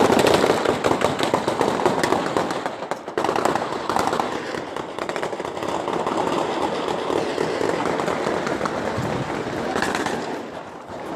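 Heavy gunfire: rapid, overlapping shots in long bursts, densest in the first three seconds, over the noise of a crowd.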